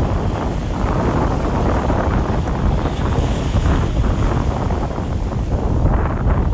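Wind buffeting the microphone: a loud, rough rushing noise, heaviest in the low end.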